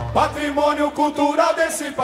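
Live samba-enredo with the bateria's bass drums dropped out in a short break, leaving a voice singing a melodic line over lighter accompaniment.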